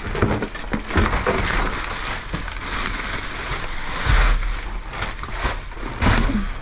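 Plastic bags and plastic wrap crinkling and rustling as trash is dug through by hand inside a metal dumpster, with a few dull thumps as cardboard boxes and foam trays are shifted.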